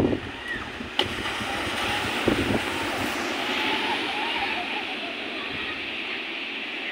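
Ocean surf breaking and washing up a sandy beach, a steady rushing, with wind buffeting the microphone in a few low thumps near the start and about two seconds in.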